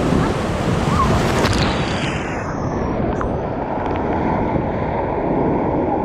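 River rapids rushing in a loud, steady wash of white water, turning duller about two seconds in as the hiss drops away.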